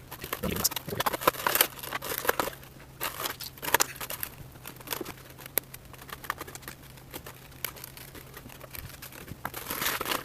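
Plastic and cardboard toy packaging crinkling and crackling, with many irregular sharp clicks, as an action figure is taken out of its box. The handling is busiest in the first few seconds and picks up again near the end.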